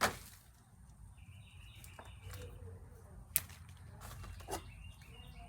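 Bolts and hand tools being handled while parts are stripped off a four-wheeler: a sharp clack at the start, then a few lighter knocks and another sharp click about three and a half seconds in. A small bird chirps in short repeated phrases between them.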